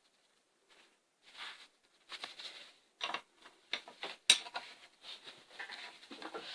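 Quiet handling of metal combination wrenches: scattered light rustles and clicks, with one sharper click about four seconds in.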